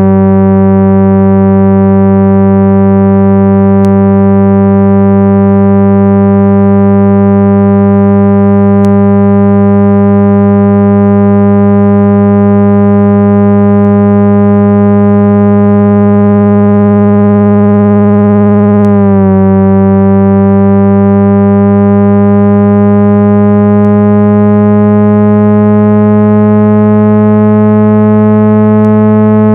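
Steady, loud 165 Hz low-pitched cleaning tone from a speaker, buzzy with many overtones, played to vibrate dust out of a phone's speaker grille. There is a brief glitch about 19 seconds in.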